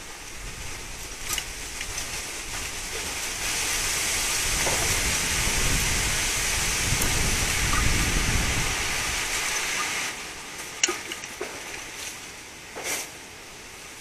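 Wind gusting through garden trees and shrubs, a rushing noise that swells a few seconds in with low buffeting on the microphone, then eases after about ten seconds. A few short sharp clicks sound over it.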